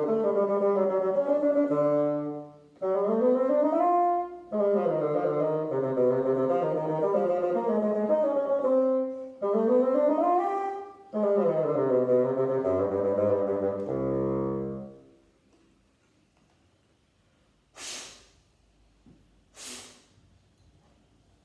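Solo bassoon playing a melody in phrases broken by short breaths, ending on a long low held note about fourteen seconds in. After that it is quiet apart from two short, sharp noises near the end.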